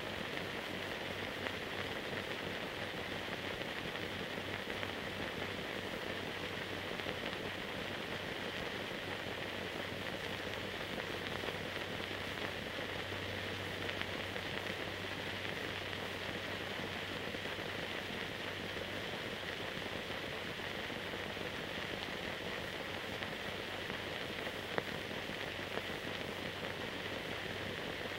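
Steady hiss with a low hum and faint crackle from the transfer of silent newsreel film, with one sharper click near the end.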